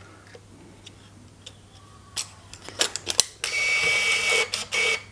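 Canon EOS 620's built-in film-advance motor auto-loading 35mm film: a few sharp mechanical clicks, then a steady high-pitched whir for about a second and a second short whir near the end as the film winds on to frame 1.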